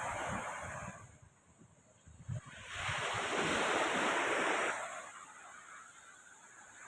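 Sea waves washing onto the shore, with wind buffeting the microphone: one wash fades away within the first second, and another swells about two and a half seconds in and dies down near five seconds.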